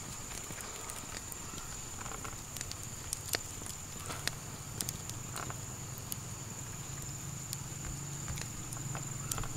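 Small wood campfire crackling, with scattered sharp pops and snaps, over a steady high-pitched insect drone.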